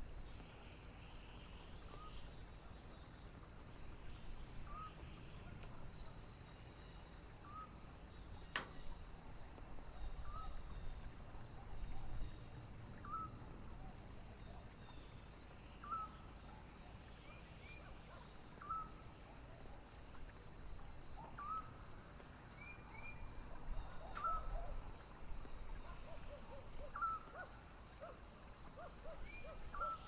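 Crickets chirping in a steady pulsing chorus over a low rumble of wind. A short rising call repeats about every three seconds, and there is a single click about eight seconds in.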